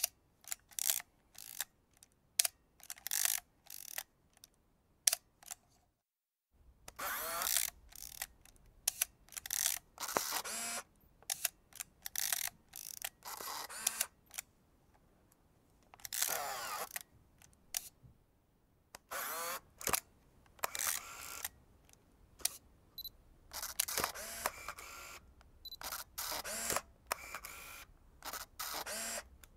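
Vintage film camera mechanisms worked over and over. First comes a quick run of short, sharp shutter clicks for about six seconds. After a brief break, a second recording follows with longer mechanical strokes of about half a second, mixed with clicks.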